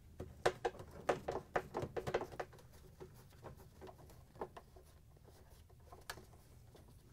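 Small, quiet clicks and ticks of a nut driver turning out screws from a washer's plastic drain pump. The clicks come in a quick run for the first couple of seconds, then thin out to scattered single clicks.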